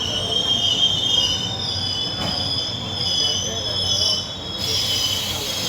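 Wheels of an ICF passenger coach squealing against the rails as the train runs, a wavering high-pitched screech of several tones over the steady rumble of the moving train.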